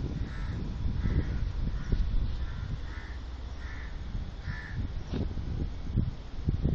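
A crow cawing in a steady series, about seven caws roughly two-thirds of a second apart, stopping a little past the middle, over a low rumble with a few knocks.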